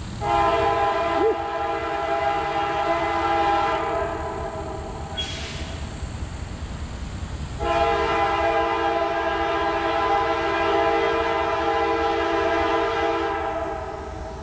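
Freight diesel locomotive's multi-note air horn, a CSX Dash-8 leading, sounding two long blasts as the train approaches. The first lasts about four and a half seconds; after a short pause the second lasts about six seconds.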